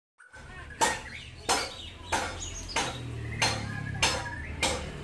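Seven sharp knocks about 0.6 s apart in a steady rhythm, over a low steady hum, with a bird chirping faintly.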